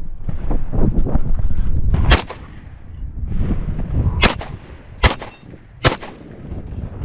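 Shotgun fired four times during an IPSC shotgun stage: one shot about two seconds in, then three more spaced just under a second apart near the end. Loud low rumbling noise fills the gaps between the shots.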